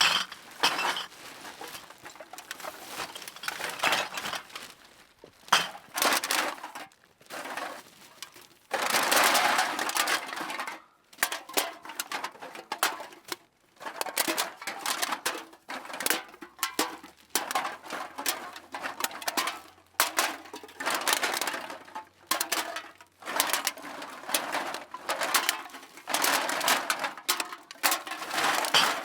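Cans being put one after another into a bag: a long series of clattering, rustling bursts about every one to two seconds, with sharp metallic clinks among them.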